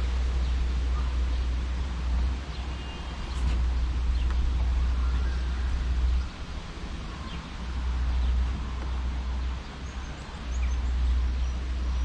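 Wind buffeting the microphone in gusts, a low rumble that comes and goes every second or two, with a few faint bird chirps.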